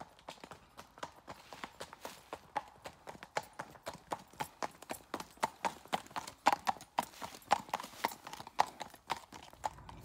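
Hooves of two walking horses clip-clopping on a tarmac lane in an uneven walking rhythm, growing louder as the horses pass close by and weakening again near the end.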